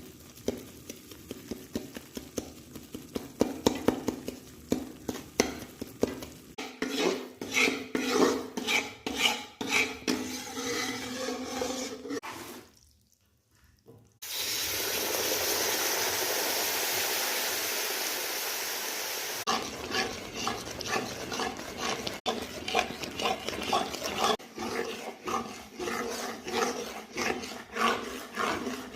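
A spoon stirring and scraping in a cooking pan, with irregular clicks against the metal. About halfway through, the clatter stops briefly and a steady hiss runs for about five seconds before the stirring resumes.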